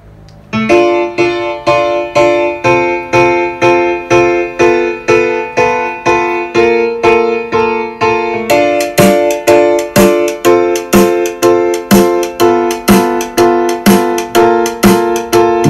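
Recorded music played through a vintage Sansui 5050 receiver and loudspeakers and picked up in the room: keyboard chords struck over and over, about twice a second, starting about half a second in.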